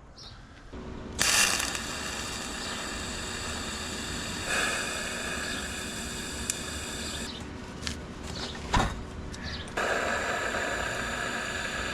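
TIG welding arc running in two steady, buzzing runs, with a short pause between them holding a few clicks and one sharp knock.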